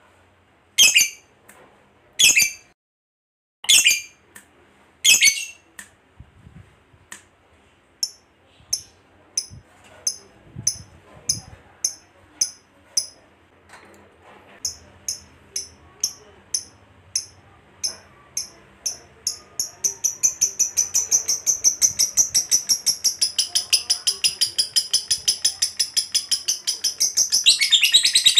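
Lovebird calling: a few loud, separate shrill calls, then short high chips that come faster and faster until they run together into a long, rapid chattering trill, the lovebird's ngekek, which grows louder near the end.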